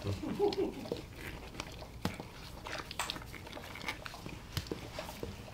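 Cane Corso in labour making faint wet licking and mouth sounds, with scattered soft clicks and rustles.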